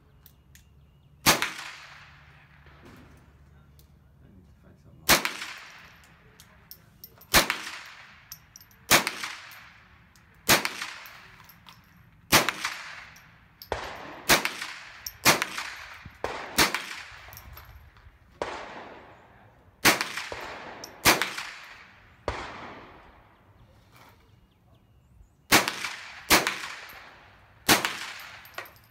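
Rifle shots at an outdoor range, about sixteen of them spaced one to four seconds apart, each sharp crack followed by a ringing echo that dies away over about a second.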